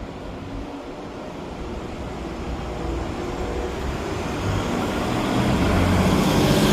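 Roadside rushing noise heard while cycling along a street, swelling steadily louder over several seconds, with a low rumble under it.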